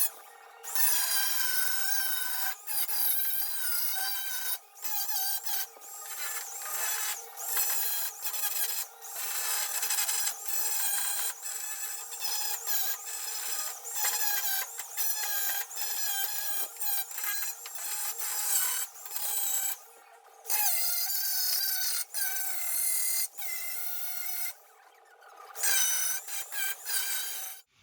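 Angle grinder grinding down fresh welds on the steel of a car's A-pillar: a harsh, hissing grind over a steady motor whine whose pitch wavers as the disc is pressed into the metal, with a few brief pauses. The grinder cuts out at the very end.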